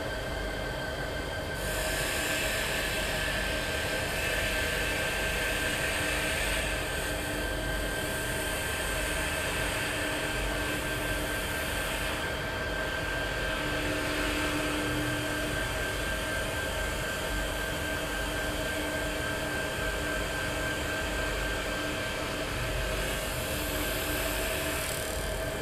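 Multi-spindle CNC wood lathe turning wooden furniture legs: a steady machine hum with a whine, plus a high rushing noise as the cutters shave the spinning wood. The rushing comes in about two seconds in, eases in the middle and swells again near the end.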